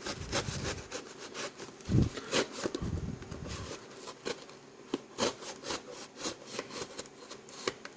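A knife cutting and sawing at the shrink-wrap and cardboard of a boxed card product, in irregular scraping, rasping strokes, with a few dull thumps of the box being handled, the loudest about two seconds in.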